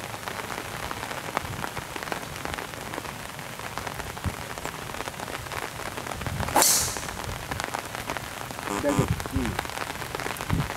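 Steady rain pattering throughout. About six and a half seconds in comes the loudest sound: one sharp crack of a driver striking a teed golf ball.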